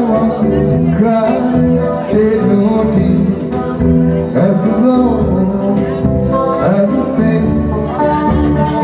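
Band music with an electric guitar playing and a man's voice singing.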